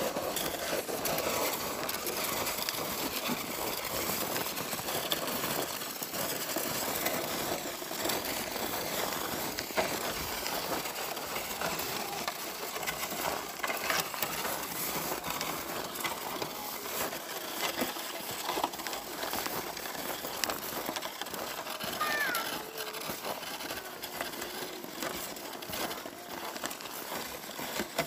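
Steady crunching and scraping on packed snow from footsteps and a plastic sled being pulled along, a crackly noise full of fine ticks.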